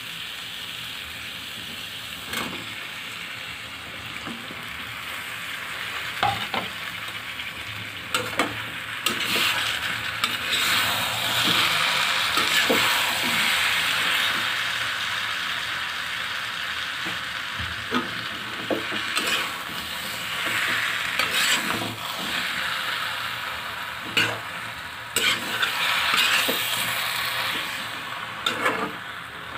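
Potato and brinjal pieces sizzling in hot oil and masala in a kadhai, turned with a metal spatula that scrapes and knocks against the pan every few seconds. The sizzle grows louder about nine seconds in.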